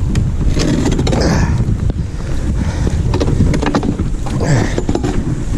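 Wind buffeting the microphone, with scattered knocks and scrapes from a heavy metal traffic-light sign being hauled out of the water.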